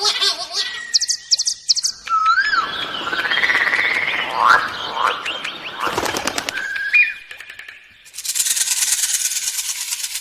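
Wild birds calling one after another: rapid high chirps, then whistled glides and chirps over a busy chorus, with a brief burst of clicks about six seconds in. About eight seconds in, a dense, high, rattling trill takes over.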